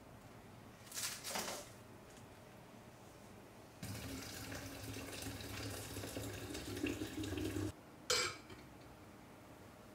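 Water poured in a steady stream from an enamel kettle into a glass carafe for about four seconds, stopping abruptly, then a short clink as the carafe's metal lid is set on. A brief noise about a second in.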